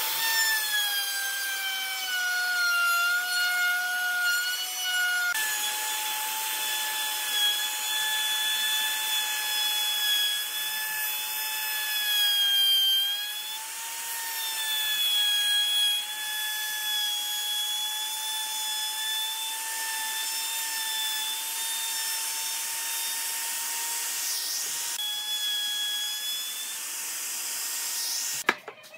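A power tool running at high speed and cutting wood: a steady high whine over a hiss of cutting, sagging in pitch now and then under load. The sound changes abruptly a few times.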